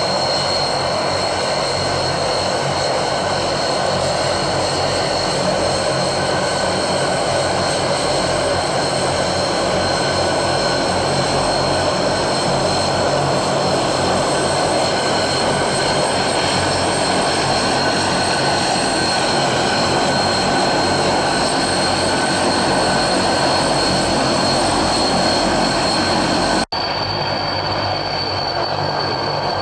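Propeller aircraft engines running steadily, with a constant high whine over the engine noise. The sound cuts out for an instant near the end and resumes slightly quieter.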